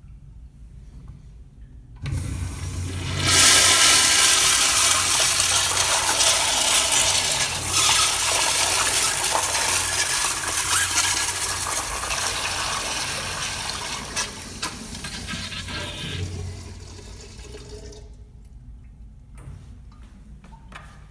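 Sloan flushometer valve flushing a Crane Plumbing toilet: a sudden hiss as the valve opens about two seconds in, then a loud rush of water through the bowl that slowly fades. The valve shuts with a thud around sixteen seconds in, leaving a short, quieter trickle.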